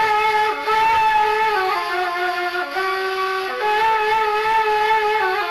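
Background music: a slow melody of long held notes played on a woodwind instrument.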